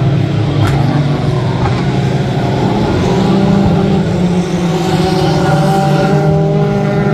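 Engines of several mini trucks, small compact pickups, running hard together as they race around a dirt oval. The sound is a loud, steady mix of overlapping engine notes that shift slightly in pitch.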